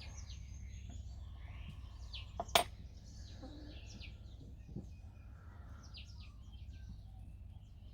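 A steel fire striker struck against a flint shard to throw sparks onto amadou: two sharp, quick strikes about two and a half seconds in, then a couple of fainter strikes. Birds chirp throughout.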